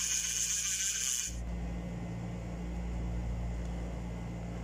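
A freshly serviced spinning reel cranked by its handle, the rotor and gears whirring steadily. About a second in, the whirr stops abruptly, leaving a steady low hum.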